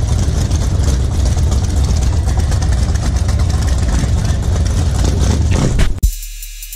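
Outdoor car-show background noise: a dense low rumble with faint crowd chatter. Near the end it cuts off abruptly and a music track with a drum-machine beat starts.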